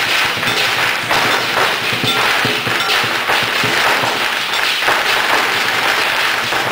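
Strings of firecrackers going off in a dense, rapid, irregular run of sharp cracks and bangs.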